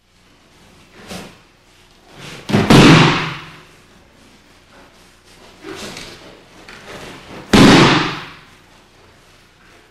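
Two heavy slaps and thuds of a body taking a breakfall on a tatami mat as the attacker is thrown, about 2.7 s in and again about 7.6 s in, each preceded by a lighter sound of the attack a second or two earlier.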